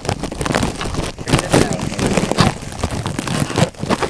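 Plastic covering crinkling and rustling right against the microphone as it is pulled off the front of the camera. The noise is loud and irregular, with uneven crackly spikes.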